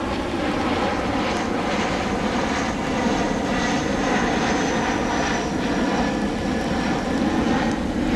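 An engine drones steadily, its pitch sinking slightly over the seconds, over a steady hiss.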